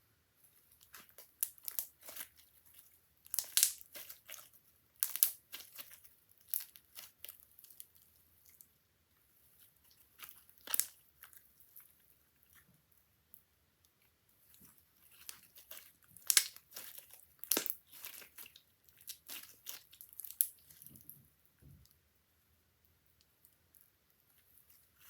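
Homemade glossy white slime of Elmer's glue and shaving foam being squished and stretched by hand, giving irregular crackling clicks and pops from trapped air, in clusters with short pauses.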